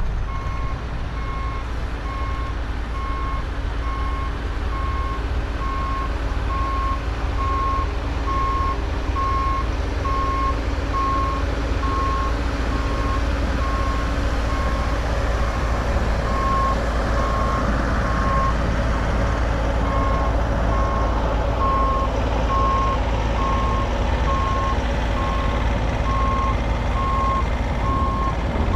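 A vehicle's reverse backup alarm beeping about once a second over a steady low engine rumble. The beeping pauses twice for a second or two.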